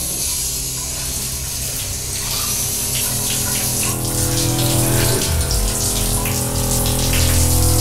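Shower running: water spraying in a steady hiss that grows louder about four seconds in.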